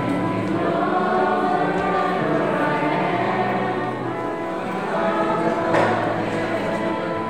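Church choir singing a sacred hymn in sustained, held notes, with a brief knock about six seconds in.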